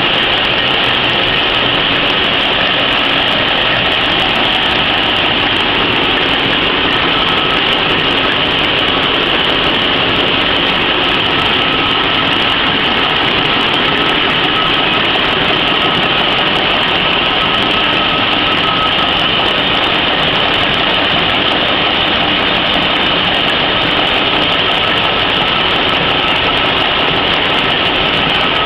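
PCMC 23 cm napkin folding machine running steadily, feeding a paper web off a large parent roll. It makes a loud, even, hissing mechanical noise with a faint steady whine.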